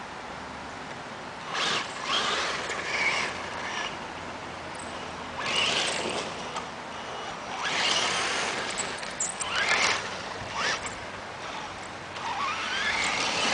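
Radio-controlled off-road car driving on a gravel dirt track: repeated bursts of motor whine and tyres scrabbling on gravel as it accelerates, a few seconds apart, with a rising whine near the end.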